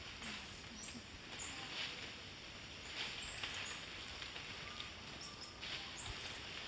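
Squirrel monkeys giving short, high-pitched chirping calls in quick clusters of two or three, over a faint steady high whine and some leaf rustling.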